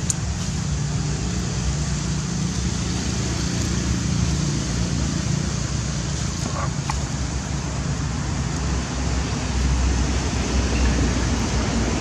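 Steady outdoor background noise, heavy in the low end, with a brief faint high-pitched sound about two-thirds of the way through.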